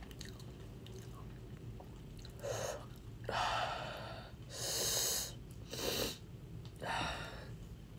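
A woman breathing hard in and out through her mouth, about five separate breaths, the middle one the loudest, to cool a mouth burning from spicy food.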